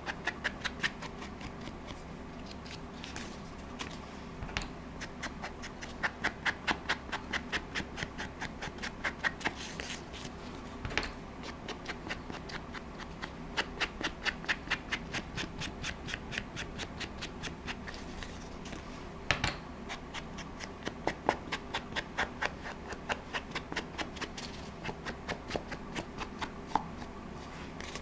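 Foam ink blending tool dabbed rapidly against the edges of a paper card, quick runs of light taps broken by short pauses, with a few sharper clicks.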